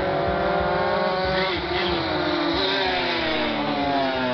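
Racing motorcycle engines at full throttle, several bikes overlapping as they come down the straight, their engine notes rising and falling in pitch.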